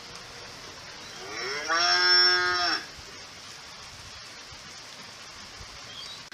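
A cow mooing once: a single long call of about a second and a half, starting about a second in, its pitch rising at the start, holding level, then dropping away at the end.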